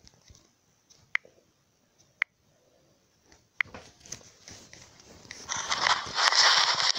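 A phone handled close to its own microphone: a few sharp single taps, then loud crackly rustling from about five and a half seconds in.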